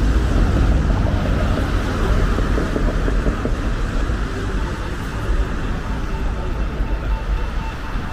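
Busy city-centre street ambience: a steady low rumble of road traffic mixed with general urban noise, easing slightly toward the end.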